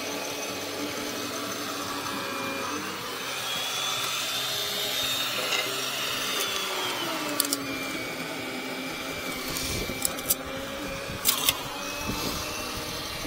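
An electric motor-driven tool running steadily, its pitch slowly rising for a few seconds and then falling back, with a few sharp clicks or knocks in the second half.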